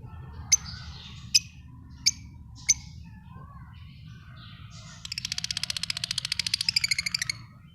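Lovebirds chirping: four sharp, loud chirps in the first three seconds over soft twittering, then a fast rattling chatter of about a dozen pulses a second for a little over two seconds near the end.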